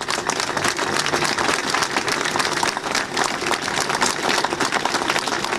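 A large crowd applauding: many hands clapping in a dense, steady patter.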